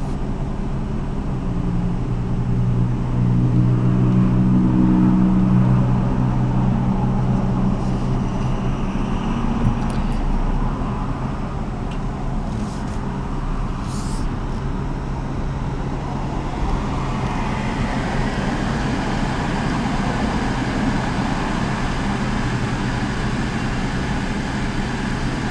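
Car engine idling, heard from inside the cabin: a steady low hum that swells louder for a few seconds near the start, then settles.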